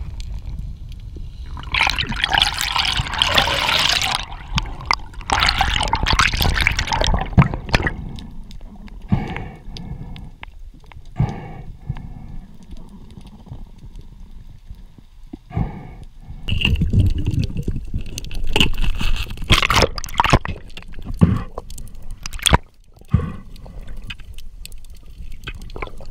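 Underwater water noise heard through a camera housing: gurgling and bursts of bubbles over a low rumble, with a few sharp knocks.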